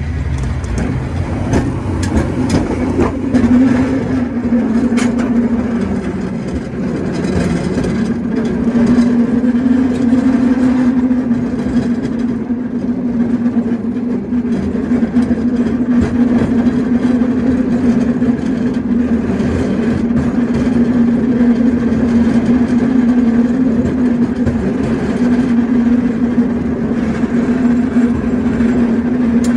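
San Francisco cable car running along its track: a steady droning hum with the rumble of steel wheels on the rails, and a few sharp clicks and clanks in the first few seconds.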